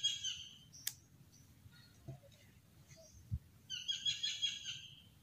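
A songbird, the tikarol, sings a short phrase of stacked high notes twice: one is ending just as the sound begins and another comes about four seconds in. Between the phrases there is a sharp click and a few soft footfalls on wooden boardwalk planks.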